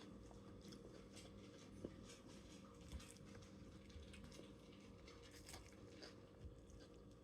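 Faint chewing: soft, irregular wet mouth clicks from eating a rice-and-bean bowl, over a low steady hum.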